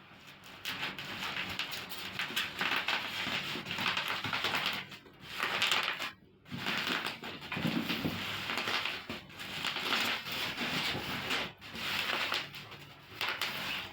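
Packaging rustling and crinkling in bouts as the sewing machine and its accessories are unwrapped, with small clicks and short pauses between handlings.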